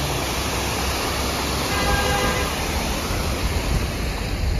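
Mahindra XUV700 on the move: steady rushing road and wind noise with a deep rumble underneath.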